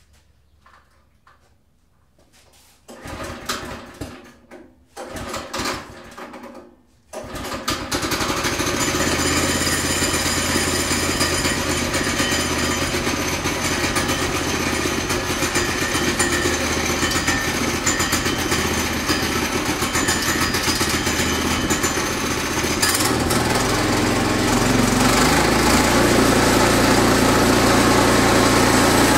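Sawmill engine being started: two short sputtering tries, then it catches about seven seconds in and runs steadily, dropping toward idle about twenty-three seconds in.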